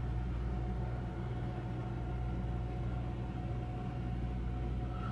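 Steady low hum of room noise with a faint higher tone held over it, unchanging throughout.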